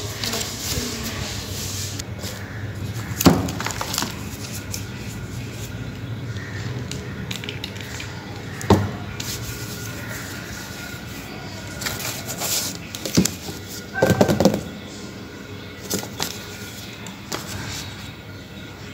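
Paper and cardboard being handled: a small card and notes rustling, then a cardboard shipping box being opened. There are a few sharp taps and knocks, single ones about 3, 9 and 13 seconds in and a short cluster around 14 seconds.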